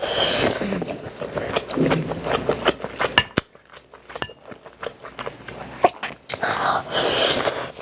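A person eating a meal: chewing, with clinks of cutlery against a dish. A longer rustling, hissing noise comes at the start and again near the end.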